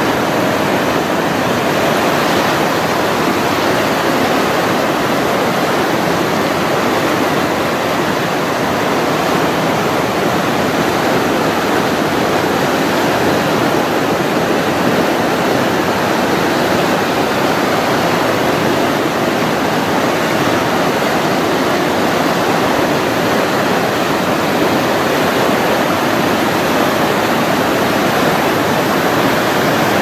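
Loud, steady rush of white water, the sound of a waterfall or rapids heard up close.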